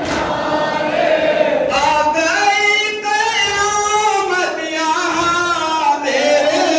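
Mourners singing a noha, a Shia Muharram lament. From about two seconds in, one man's voice leads in long, wavering held notes over the crowd's voices.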